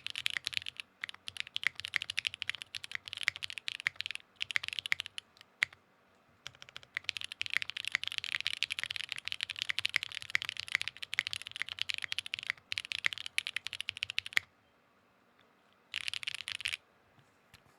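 Fast typing on a Wind X65 custom mechanical keyboard with SP-Star Blue Pink switches, a POM plate, foam and GMK keycaps: dense runs of key clicks with brief pauses. The typing stops about two-thirds of the way in, a short run follows a second and a half later, then it goes quiet.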